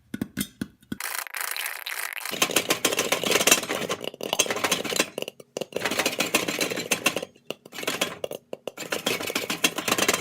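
Popcorn popping in oil and caramel glaze in a covered pan on the stove, the pan being shaken over the burner: a dense rattling and clattering of kernels and metal, in spells with short pauses between. The popping is still going steadily, not yet slowing toward the end of the batch.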